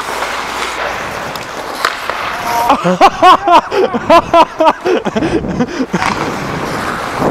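Hockey skate blades scraping and gliding on rink ice, with a burst of loud laughter in quick repeated pulses for about two seconds near the middle.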